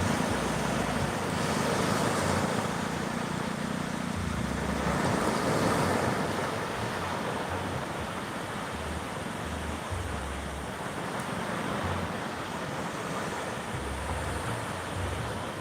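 Steady wind and water noise, with gusts buffeting the microphone in low rumbles.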